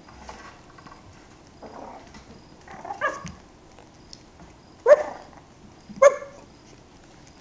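Yorkshire terrier puppies playing, giving short high-pitched yips: three sharp ones in the second half, the last two about a second apart, with fainter yelps before them.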